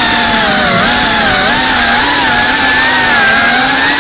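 FPV quadcopter's brushless motors and propellers whining steadily, the pitch wavering up and down with the throttle as the drone manoeuvres.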